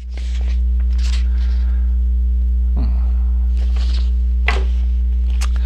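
Loud, steady electrical mains hum in the microphone signal, with a fainter higher tone above it. A few faint breaths and small mouth clicks sound over the hum.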